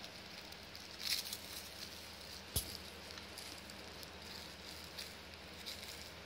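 Foil crinkle-ball cat toys crinkling in short bursts as a Siamese kitten grabs and bites them, the loudest burst about a second in, with a single sharp click a moment later.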